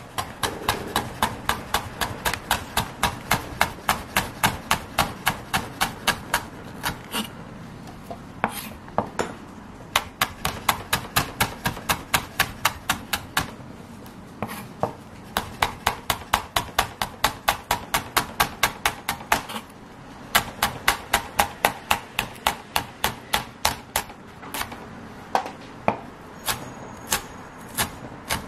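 Kitchen knife slicing green and red chili peppers on a wooden cutting board: quick, even knocks of the blade on the board, about three a second, in several runs with short pauses between them.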